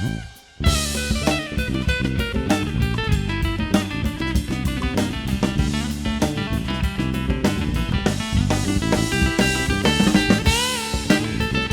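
Live band playing an instrumental passage of a song, guitar over a drum kit with a steady beat. The band cuts out for about half a second near the start, then comes back in together.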